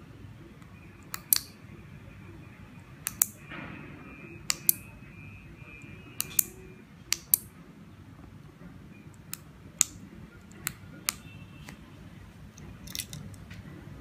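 A dozen or so sharp clicks, many in pairs about a fifth of a second apart, from the buttons of a 433 MHz key-fob remote being pressed and released and a 12 V relay on the receiver switching on and off.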